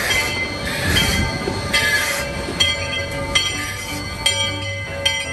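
Narrow-gauge steam train, locomotive No. 40 hauling open passenger cars, rolling slowly past a station platform with squealing wheels, loudest in the first two seconds. Music plays over it.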